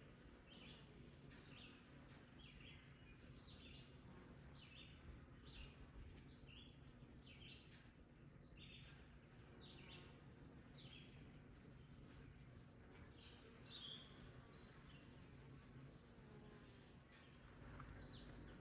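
Faint outdoor ambience with a bird calling: a series of short, falling high chirps about two a second, thinning out past the middle.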